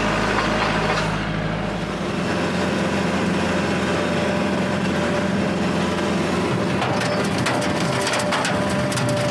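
Kubota L4701 tractor's diesel engine running steadily. From about seven seconds in, a rapid crackle of clicks joins it as the Countyline brush hog chops through brush.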